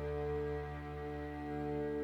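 Bowed double bass and strings holding one long, steady chord.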